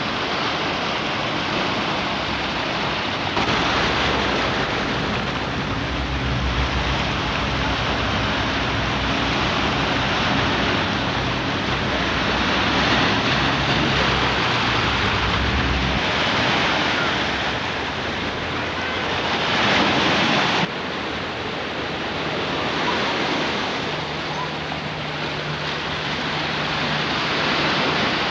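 Ocean surf washing in, a steady rushing that swells and fades. For about ten seconds in the first half a low engine hum runs underneath, and the sound changes abruptly about two-thirds through.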